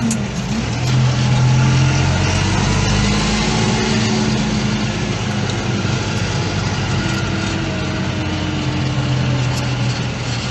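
Diesel engine of heavy farm machinery running steadily, its pitch shifting only slightly.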